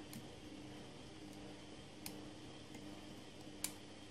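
Metal lock pick working the pins inside a Ruko Flexcore 5-pin lock held under heavy tension: three faint, sharp clicks, the loudest near the end, over a low steady hum.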